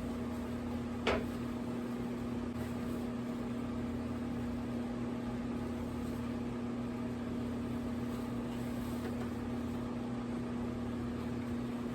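Steady electric fan running with a constant low hum and hiss, and a single sharp click about a second in.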